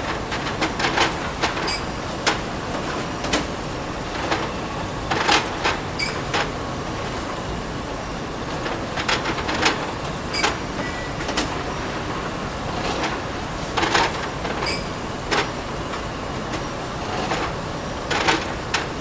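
Plate-making machinery running with a steady noise underneath and irregular sharp clacks and clinks, coming in small clusters every few seconds.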